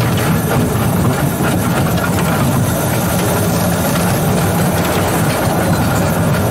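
Two-foot-gauge electric locomotive running slowly along the track, heard from its cab: a steady low rumble of the drive and the wheels on the rails.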